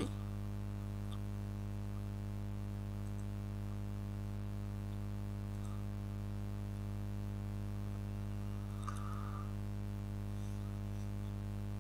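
Steady low electrical hum with an even stack of overtones, typical of mains hum picked up in the recording. A faint click about nine seconds in.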